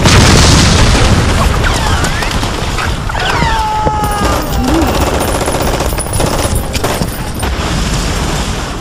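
Mountain bike downhill heard through a helmet-mounted action camera: heavy wind buffeting on the microphone with rapid knocks and rattles from the bike over rough ground, loudest in the first second, and brief squealing glides through the middle.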